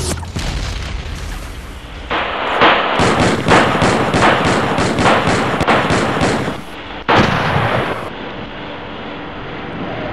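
Gunfire: a rapid string of shots over a few seconds, then a single louder shot about seven seconds in.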